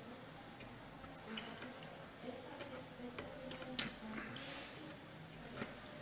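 Irregular light metallic clicks and clinks of an adjustable wrench working the nut that holds a blender motor's metal cooling fan.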